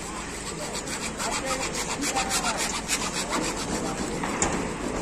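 A hand saw cutting through PVC electrical conduit pipe with quick, even back-and-forth strokes.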